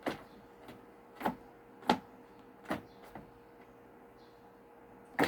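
Short scuffs and thuds of cats scampering and skidding during a chase: about six in the first three seconds and a louder double one near the end, over a faint steady hum.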